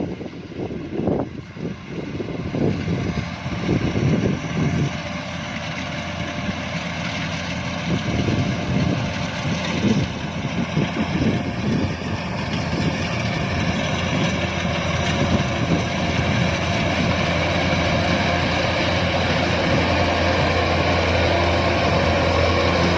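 Kubota DC-105X combine harvester's diesel engine and threshing machinery running under load while harvesting rice. Irregular low thumps in the first few seconds give way to a steady hum that slowly grows louder.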